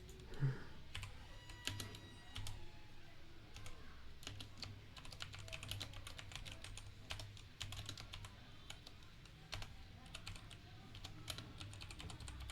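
Typing on a Kreo computer keyboard: a run of irregular key clicks, several a second, with short pauses between bursts.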